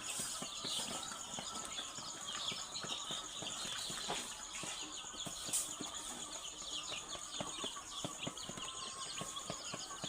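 A flock of young ISA Brown pullets cheeping constantly, with a dense patter of small clicks and taps underneath.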